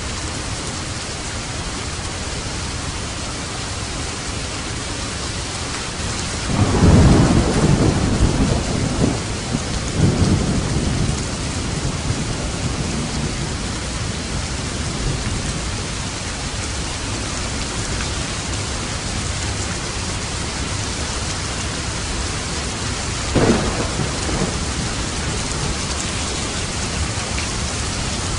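Steady heavy rain on a roof with thunder: a long rumbling roll about a quarter of the way in that swells twice before fading, and a shorter, sharper clap near the end.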